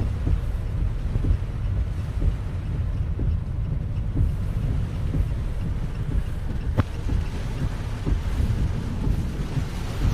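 Strong typhoon wind buffeting the microphone as a steady low rumble, with one sharp click about seven seconds in.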